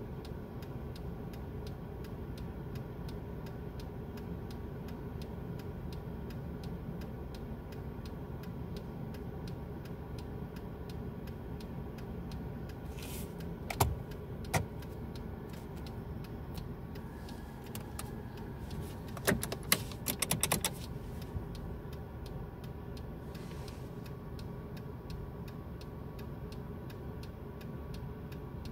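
Car's hazard-light flasher ticking steadily, a few ticks a second, over the engine idling. About halfway through there is a louder click, and about two-thirds in a quick run of sharp clicks.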